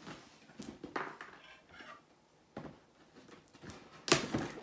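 Cardboard toy box and its plastic packaging being handled and pulled open by hand: scattered short rustles and knocks, with a louder burst of rustling about four seconds in.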